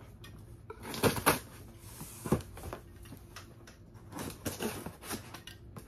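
Cardboard shipping box being handled and its packing tape cut open with a knife: scattered scrapes, taps and rustles, the loudest about a second in.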